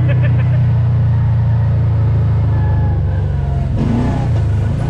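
Side-by-side off-road vehicle's engine running steadily under way on a rough dirt trail, heard from the cab as a loud low drone. About four seconds in the engine note shifts, with a brief rattle.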